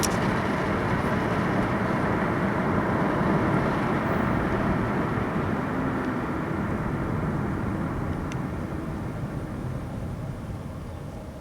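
Cabin noise of a 2001 Ford Taurus with the 3.0 V6 on the move: a steady rumble of road and engine noise that slowly fades over the last few seconds.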